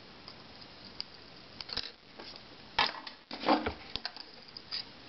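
A few short clicks and knocks of tools being handled on a workbench, over a faint steady hiss. The fullest knock comes about three and a half seconds in, as the soldering iron is put down and the side cutters are picked up.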